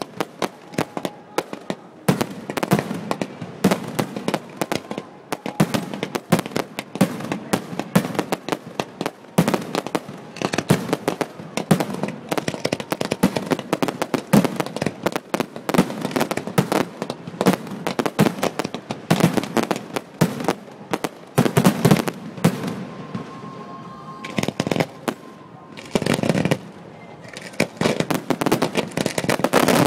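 Fireworks going off in a dense run of bangs and crackles, many a second. They thin out a little over twenty seconds in and build up again near the end.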